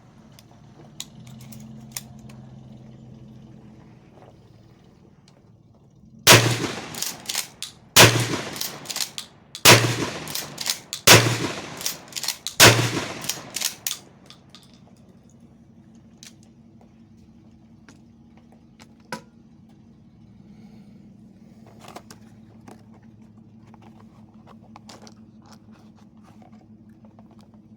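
Remington 870 20-gauge pump shotgun fired five times, about a second and a half apart, with the clatter of the slide being worked between shots. Light clicks of handling come before and after the string.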